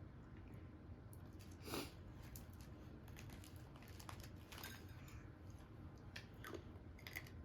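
Faint, scattered clicks and small taps of small objects being handled, with a slightly louder tap about two seconds in.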